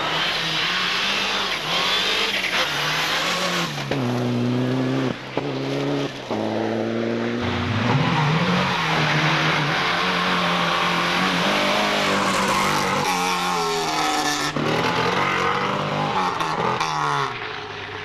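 Rally cars driven hard on a stage, their engines revving high and dropping in pitch at each gear change, with some tyre squeal and skidding. The engine sound changes abruptly a few times as different cars pass; among them are Lada 2107-type saloons.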